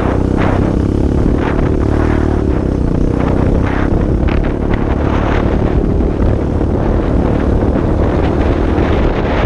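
Small motorcycle engine running steadily while riding over a rutted dirt track, with short rattles and knocks from the bumps scattered through.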